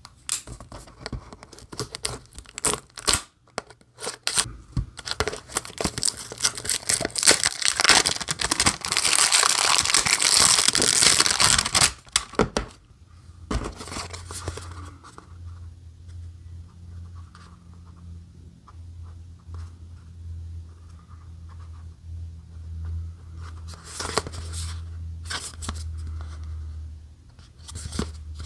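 Plastic shrink-wrap being slit with a folding knife and torn and crinkled off a small cardboard box, densest for several seconds in the first half. After that, only light handling clicks of the box over a low steady hum.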